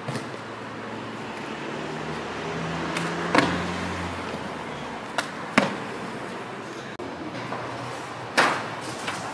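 A parkour runner's hand plants and landings on concrete, heard as several sharp thuds and slaps over steady outdoor street noise. The loudest come about three and a half and eight and a half seconds in.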